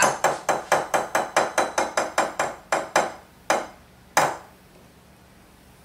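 Wire whisk clinking against a glass mixing bowl of cookie batter, quick regular strikes about four a second, then two louder single knocks as batter is cleared from the whisk.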